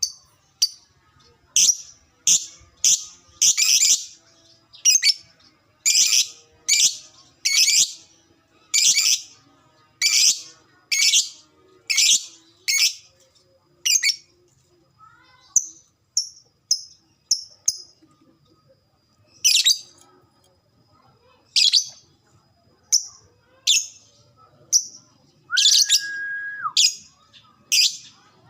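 Lovebird giving a series of short, shrill chirping calls, about one a second, some longer and louder than others. Near the end a brief steady lower tone sounds under the calls.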